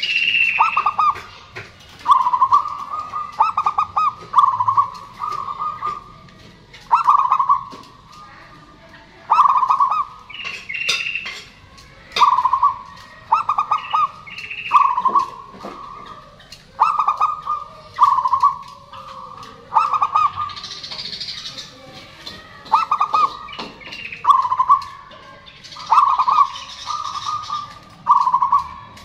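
Zebra dove (perkutut) singing: short phrases of rolling coos, repeated every couple of seconds. Fainter, higher chirps from other birds come in between.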